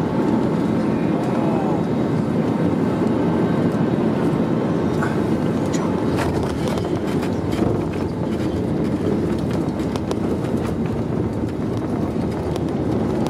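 Cabin noise of an Airbus A320neo rolling out on the runway after touchdown: a steady loud rumble of wheels, airflow and engines, with small rattles and clicks from the cabin, easing slightly as the aircraft slows.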